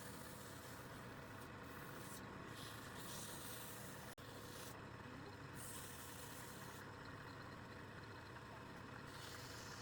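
Faint, steady mechanical hum like a motor running, with a momentary dropout about four seconds in.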